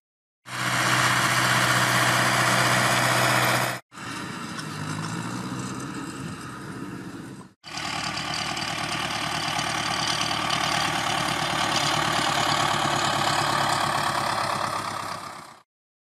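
Ursus C-360 tractor's four-cylinder diesel engine running, heard in three short clips that cut off abruptly into silence; the first, about three seconds long, is the loudest.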